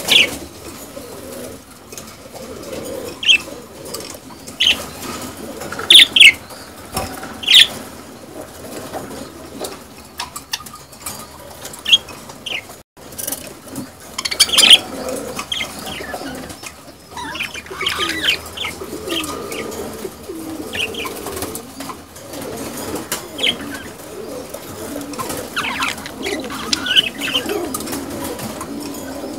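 A flock of budgerigars chattering and warbling continuously, with loud, sharp chirps every second or few. This is the courtship and breeding chatter of budgies at their nest boxes.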